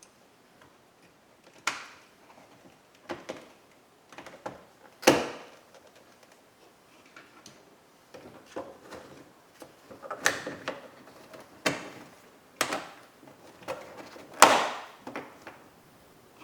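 A series of sharp plastic clicks and knocks, about a dozen, irregularly spaced, the loudest about 5 s and 14.5 s in: parts of a pickup's rear interior door trim being handled and snapped into place.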